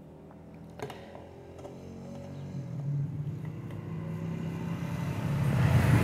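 A low, steady engine hum growing steadily louder through the second half, like a motor vehicle approaching. A light click about a second in.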